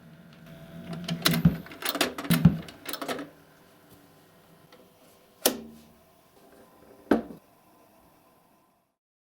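Mechanical clicks and knocks from handling a Radiotekhnika 301M-stereo record player after the record has run out: a quick cluster of clicks over about two seconds, then two single sharp knocks. A faint hum lies underneath.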